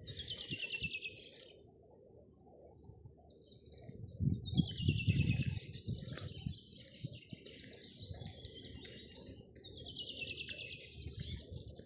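A songbird singing: three quick trilled phrases, each falling in pitch, several seconds apart. A low rumble swells about four seconds in.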